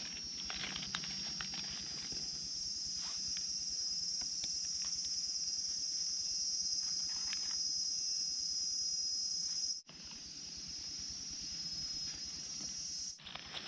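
Forest insects keeping up a steady high-pitched drone, with faint rustles and snaps of footsteps in leaf litter. The sound cuts out for an instant about ten seconds in and picks up again.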